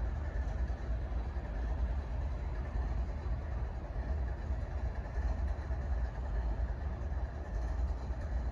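Two Norfolk Southern GE ES44AC diesel-electric locomotives leading a freight train, their engines running with a steady low rumble.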